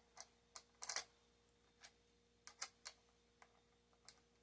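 Light metallic clicks and ticks as nuts are set onto the battery terminal studs over an aluminium bus bar and run on finger-loose. There is a quick cluster of clicks about a second in, another about two and a half seconds in, and a few single ticks in between.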